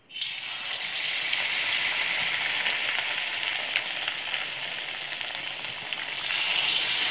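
Breadcrumb-coated potato bread rolls deep-frying in hot oil in a kadai: the oil sizzles and crackles the instant the first roll goes in. It gets louder about six seconds in as a second roll is dropped in.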